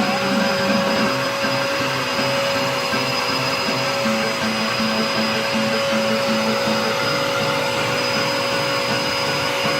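Vacuum cleaner running steadily, its motor giving a constant whine over a dense rush of air, with a low pulsing hum at about three beats a second underneath.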